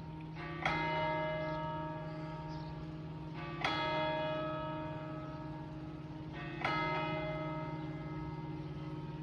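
Church bell tolling, struck three times about three seconds apart. Each stroke rings on and fades slowly over a steady low hum.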